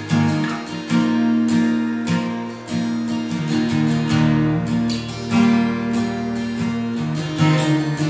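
Acoustic guitar music: strummed chords ringing out in a steady rhythm.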